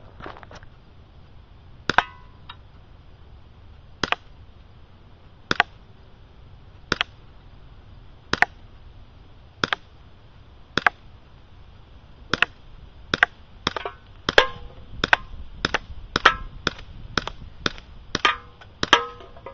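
About twenty sharp cracks of airsoft BBs from a Smith & Wesson 40F pistol striking rock and an aluminium beer can, some leaving a brief metallic ring. They come about one every second and a half at first, then quicken to about two a second over the last six seconds.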